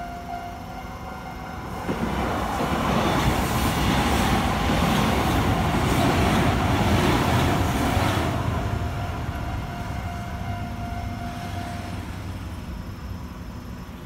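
An electric level-crossing alarm rings steadily while a Kintetsu electric commuter train runs over the crossing. The train's wheel and motor rumble swells about two seconds in, is loudest through the middle and fades away. The alarm stops shortly before the end as the crossing clears.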